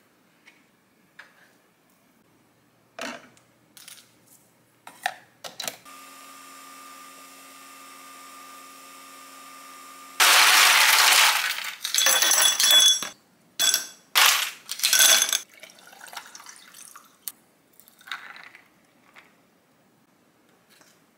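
A capsule coffee machine's pump hums steadily for about four seconds while it brews espresso into a glass cup. About ten seconds in, a loud burst of rattling and clinking begins, and several more clinking, clattering bursts follow over the next few seconds.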